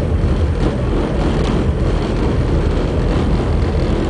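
Twin carbureted 509-cubic-inch V8 marine engines of a Fountain 32 powerboat running steadily with the boat under way.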